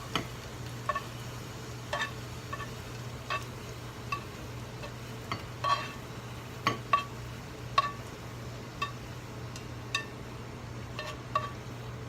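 A utensil clinking and tapping against a bowl as food is scooped across into another bowl: about fifteen short, ringing clinks at irregular intervals, over a steady low hum.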